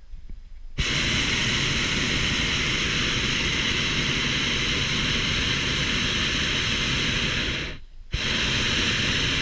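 Hot air balloon's propane burner firing: a loud, steady rushing blast that comes on sharply about a second in. It cuts out for a moment near the end, then fires again.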